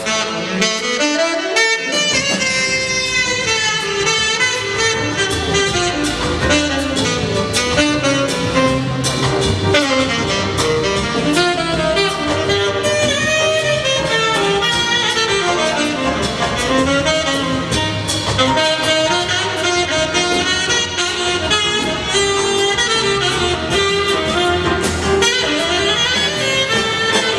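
Big band playing swing jazz: saxophone and brass sections carrying moving melodic lines over a drum kit keeping a steady groove.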